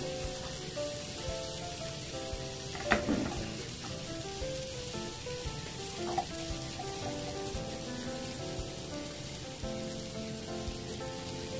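Soft background music of single melodic notes over a steady hiss, with a sharp knock about three seconds in and a lighter one about six seconds in.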